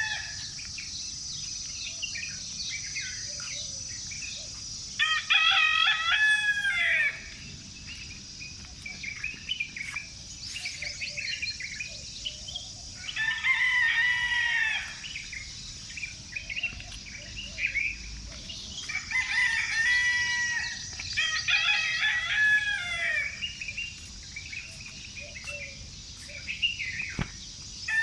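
Roosters crowing, about four long crows of roughly two seconds each, with small birds chirping in short calls between them over a steady high hiss.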